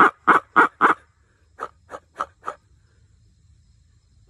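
Reed owl hooter blown in the barred owl's laughing series: four quick, loud, short hoots in the first second, then four softer ones, each note chopped off by timing the cupped hand over the call.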